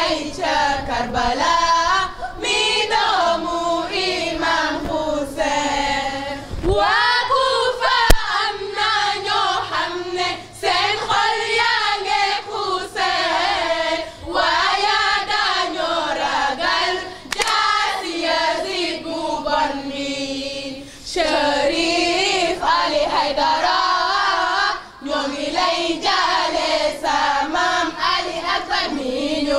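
Girls and women singing a Shia latmiya lamentation chant together, a group of high voices in a swaying, repeating melody. A single sharp knock cuts through about eight seconds in.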